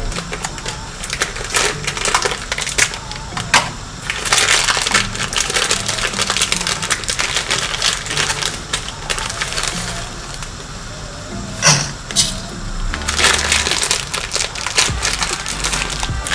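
Large stainless-steel stockpot of salted water at a rolling boil, bubbling with a crackling hiss that swells and eases. A single sharp knock comes about three-quarters of the way through.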